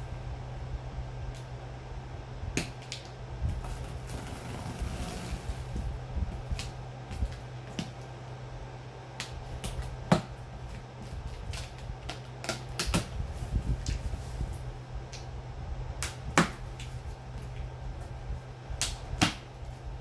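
Cardboard box and packaging being handled: scattered sharp knocks and clicks, the loudest about ten seconds in and twice more near the end, with a brief rustle about four to six seconds in, over a steady low hum.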